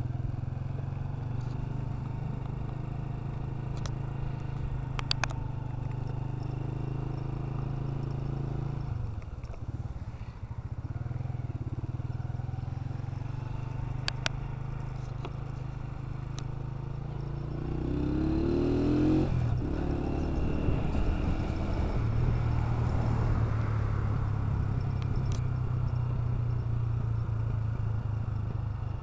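Honda CG 125 motorcycle's single-cylinder four-stroke engine running on the move, picked up close by a handlebar-mounted camera, with road and wind noise. The engine note dips briefly about nine seconds in, then rises in pitch around eighteen seconds as the bike picks up speed and runs louder after that, with a couple of sharp clicks along the way.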